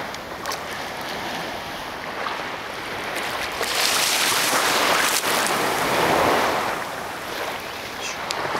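Small waves lapping and washing in shallow sea water close to the microphone, swelling louder for a few seconds in the middle.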